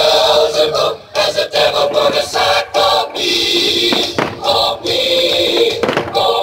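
Music with a choir singing: the soundtrack of a pyromusical fireworks show.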